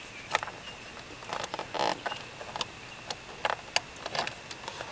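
Small plastic clicks and rustling from fingers working a fuse adapter into a slot in a car's under-dash fuse box, with a short scraping rustle about two seconds in.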